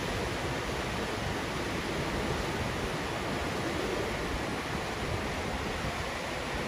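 River rapids rushing steadily over boulders and stones, a constant whitewater roar.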